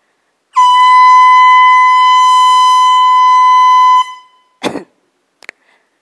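Air horn blasting one long, steady note for about three and a half seconds, then cutting off; a brief sharp noise follows about half a second later.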